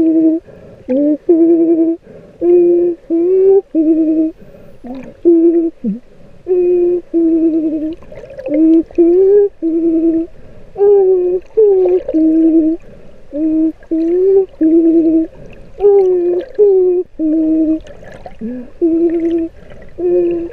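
A woman's voice humming long, slightly wavering notes underwater, muffled, in short phrases of about a second with brief breaks between them; some notes bend upward.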